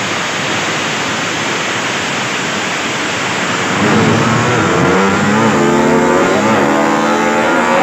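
Drag-racing motorcycle engines revving hard as the bikes launch off the start line and accelerate down the strip. From about four seconds in, it grows louder, with engine pitch rising and falling as the throttle is blipped.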